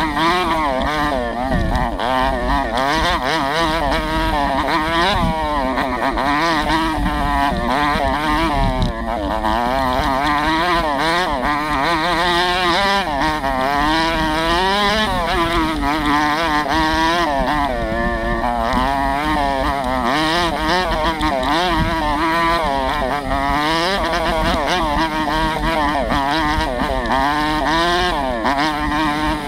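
Chinese-made 125cc four-stroke dirt bike engine revving up and down continuously as it is ridden over rough trail, the pitch rising and dropping every second or two with throttle and gear changes.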